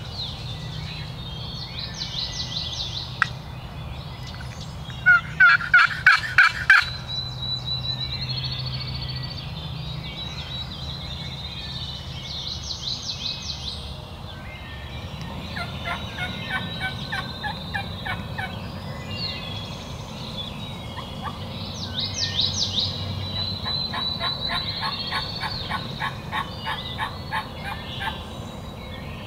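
Turkey call sounding a run of about eight quick, loud hen yelps about five seconds in, with softer runs of yelps later on, calling out to locate gobblers; songbirds sing in between.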